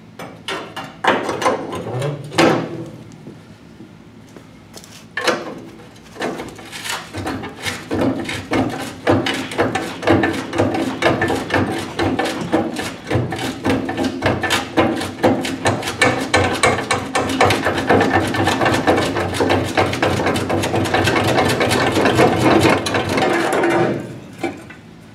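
A power tool cutting into the rusted steel channel iron of a dump truck box. A few scattered knocks come first, then from about five seconds in a steady, rapid rattle of strokes over a motor hum, which stops just before the end.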